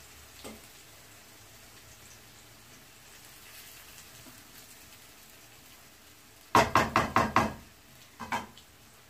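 A spoon tapped quickly against the rim of a frying pan while serving prawn fry, about six sharp knocks in a row a little after six seconds in, then two more a second later, over a faint sizzle from the still-hot pan.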